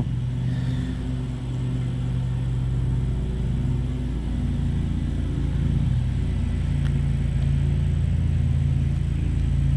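Honeybees humming around an open hive: a steady low drone of several tones that shifts slightly in pitch a few times.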